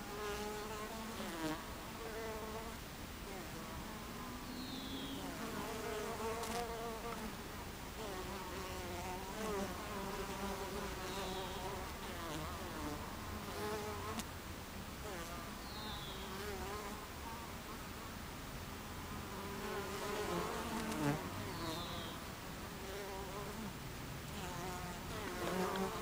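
Buckfast honey bees flying in and out of the hive entrance, buzzing, the pitch wavering up and down and swelling as single bees pass close by.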